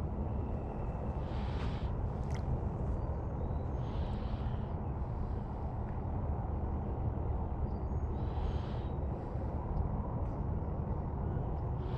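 Outdoor ambience: a steady low rumble with a few faint, short high chirps and soft hissing swells.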